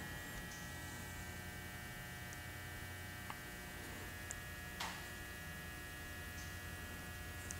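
Quiet, steady electrical mains hum, with a couple of faint light ticks partway through.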